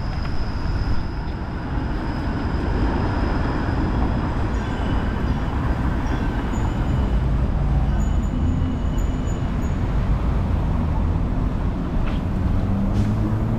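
Downtown street traffic: motor vehicles running past with a steady low rumble, and a few faint high tones in the middle.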